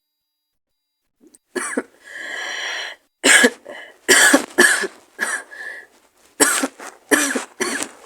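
A woman's raspy, hoarse cough from a cold with a sore throat. After a second or so of quiet there is a drawn-out breath-like sound, then a run of harsh coughs in quick bursts.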